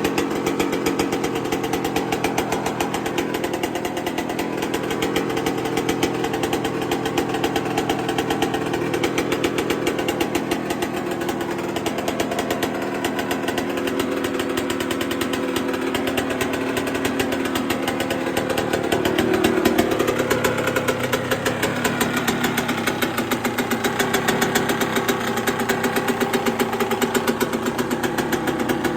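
Yamaha YZ125 two-stroke single-cylinder engine, bored out to 144 cc and just rebuilt, running on its first start after restoration. It runs steadily and loud with a fast even firing beat, and the revs rise briefly about two-thirds of the way through.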